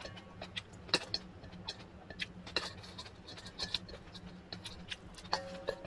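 Metal spoon scraping and clinking against a stainless-steel mixing bowl as the last of the rice is scooped up, in scattered light taps. A short pitched tone sounds near the end. A steady low hum runs underneath.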